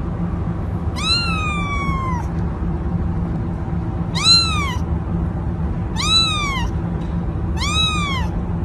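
Kitten meowing four times, each call rising then falling in pitch; the first is the longest, the rest come about two seconds apart. A steady low hum runs underneath.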